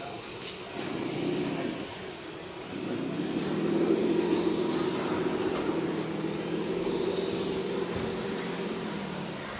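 Radio-controlled 1:10 scale crawlers running, their motors and drivetrains whining steadily as they crawl over logs. The sound swells about three seconds in, then holds fairly steady.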